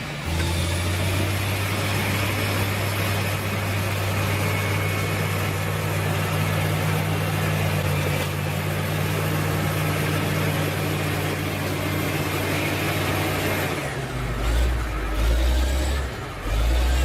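A heavy vehicle's engine running steadily with a deep, even hum; about fourteen seconds in the hum stops and gives way to uneven, deep rumbles.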